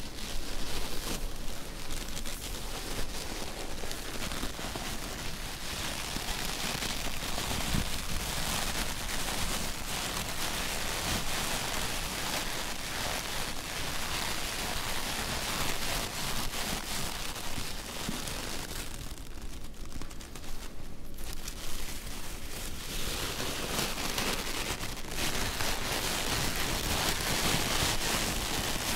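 White cotton-gloved hands rummaging in and pressing a cardboard box of white packing filling. The result is a dense, steady crackling and rustling that eases briefly about two-thirds of the way in.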